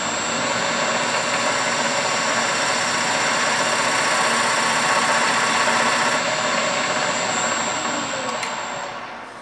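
Wood lathe running steadily with a thin high whine over its hum, then spinning down near the end.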